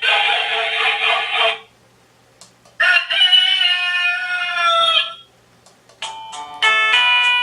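Wireless doorbell's speaker playing its rooster tune: a recorded rooster crow about two and a half seconds long, rising at the start and then held. A short noisy burst ends the previous tune about a second and a half in, and a chiming melody begins about six seconds in.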